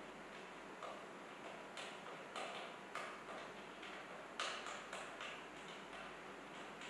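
Light, irregular clicks, roughly one or two a second, as a leg foot is screwed by hand into the end of a wooden dining-table leg. The loudest click comes about two-thirds of the way through.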